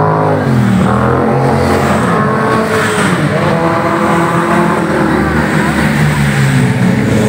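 Motorcycles and other road traffic passing close by in a steady stream, engines running and revving, their pitch falling and rising several times as vehicles go past.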